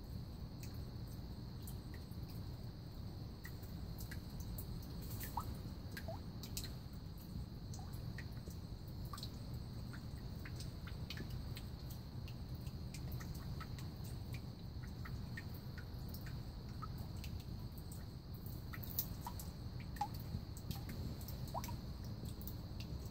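Quiet pond ambience: a steady low hum with a faint steady high whine above it, and scattered small ticks and drips throughout.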